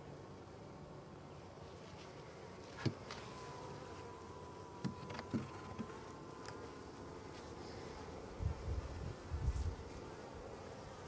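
Honeybees buzzing steadily around an opened hive. A few sharp clicks and knocks from handling the hive come through the buzzing, with low thumps near the end.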